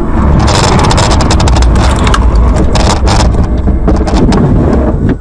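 A car running off the highway and ploughing through snow and small roadside trees, heard from inside the car: a loud rumble with a dense run of thumps, cracks and scrapes starting about half a second in.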